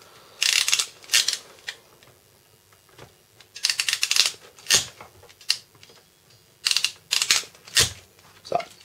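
Crimping pliers clicking as they are closed on an insulated cable terminal: several bursts of quick, sharp clicks with short pauses between them, as the terminal is crimped repeatedly.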